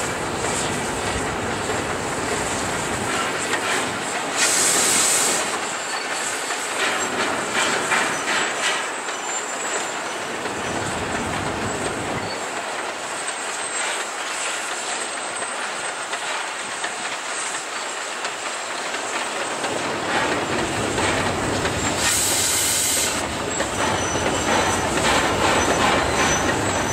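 Shay geared steam locomotive working hard as it hauls passenger coaches across a trestle: steady steam exhaust and the clatter of train wheels on the rails. Two short bursts of high hiss cut in, about five seconds in and again near the end.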